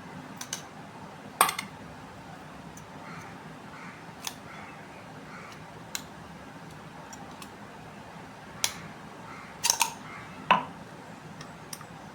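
Small hard objects being handled: about eight sharp clicks and light taps at irregular intervals, the loudest about a second and a half in and a quick cluster near ten seconds in.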